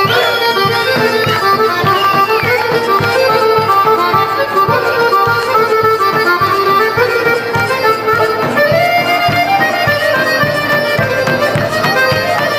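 Instrumental Serbian folk dance music (kolo): a melody over a steady drum beat.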